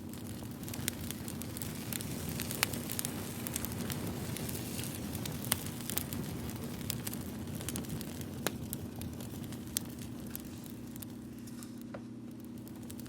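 Campfire crackling: irregular sharp pops and snaps over a steady low hum.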